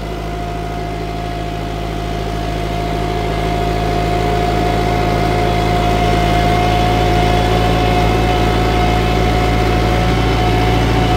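Kubota farm tractor's diesel engine running steadily, growing louder over the first few seconds and then holding, with a steady whine above the engine note.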